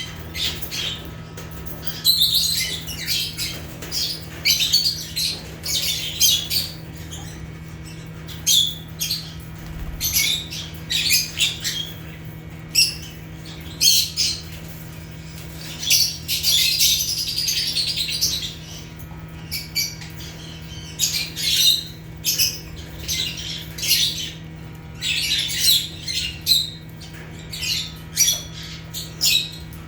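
Lovebirds chirping and squawking: a flock's short, high-pitched calls come in rapid clusters one after another, over a steady low hum.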